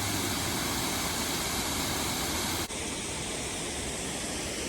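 Waterfall rushing: a steady, even hiss of falling water. About two-thirds of the way through it cuts abruptly to a slightly quieter, duller stretch of the same rush.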